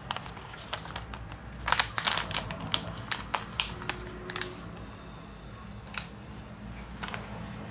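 Light clicks and taps of small tools and plastic or metal phone parts being handled: a quick run of about a dozen sharp clicks in the middle, then a couple of single clicks near the end, over a low steady hum.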